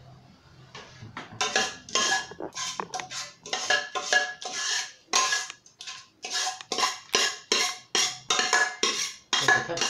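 A metal spoon scraping and clinking against the inside of a stainless steel pot as thick pudding mixture is scooped out, about two strokes a second, with the pot ringing. The strokes start about a second in.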